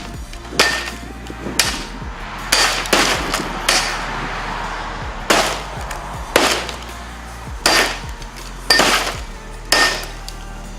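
A 55-inch Hitachi LED TV being smashed: about ten heavy blows strike it at irregular intervals of roughly a second, with music underneath.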